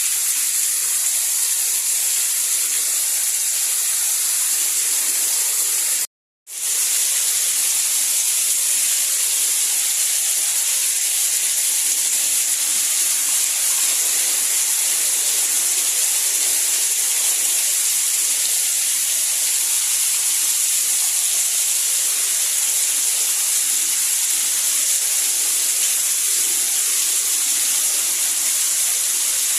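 Steady, even hiss of heavy rain. It cuts out completely for about half a second around six seconds in, then comes straight back.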